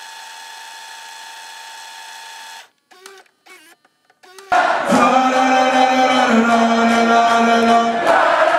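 Tape-style glitch transition: a steady electronic hum tone cuts out into a dropout with a few brief warbling squiggles. About four and a half seconds in, loud music with sustained held chords cuts back in.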